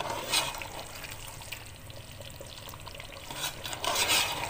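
Chicken korma sizzling as it is fried on high heat, stirred in the pot, with a few loud scrapes of the stirring utensil against the pot, the loudest near the end.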